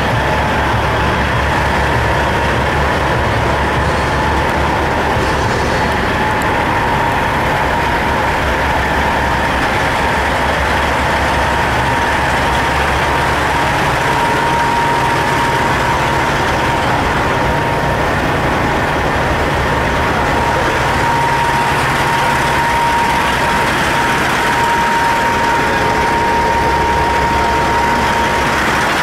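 Heavy diesel truck engine idling steadily, a low even rumble with a thin high whine held on top.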